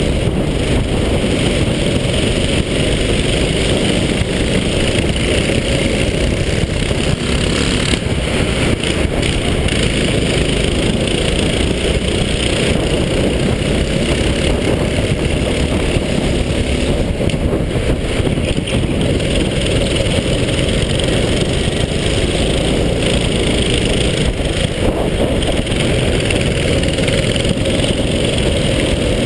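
Go-kart engine running at racing speed, heard from a helmet-mounted camera as a loud, steady rumble mixed with wind rush.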